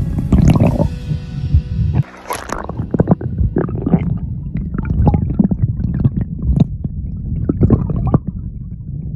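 Muffled low rumble of river water heard through a submerged camera microphone, with many sharp clicks and knocks; the rumble drops briefly about two seconds in.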